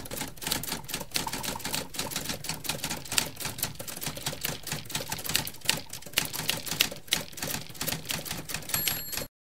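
Typewriter sound effect for on-screen text being typed out: rapid, irregular clacking of keys, several strikes a second. A brief high ring comes just before it cuts off suddenly about nine seconds in.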